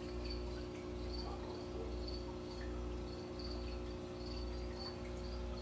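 A steady low hum with a short, high chirp repeating about twice a second.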